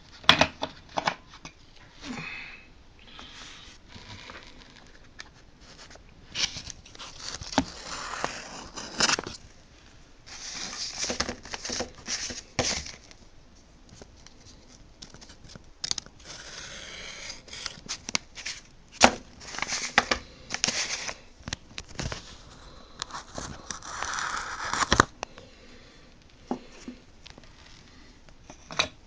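Paper envelopes and packaging handled on a table: scattered clicks and taps, with several bursts of rustling, crinkling and tearing.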